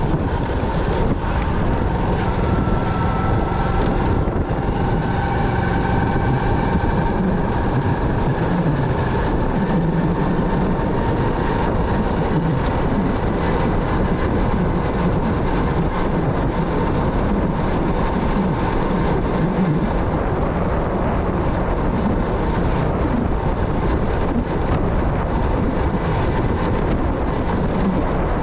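Motorcycle running steadily on the road, with wind buffeting the microphone and a few faint high whines in the first half.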